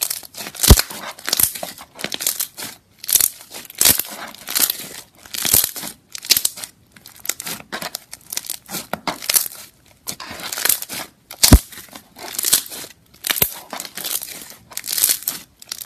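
Thick green slime squeezed and pressed by hand, making irregular crackling, crinkling squishes about every half second, with a few sharp pops of trapped air.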